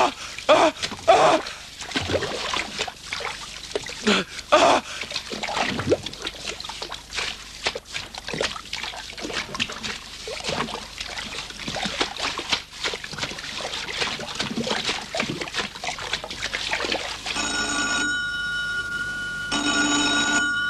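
Rustling and splashing of someone crawling through marsh reeds and shallow water. Near the end a telephone bell starts ringing in short rings.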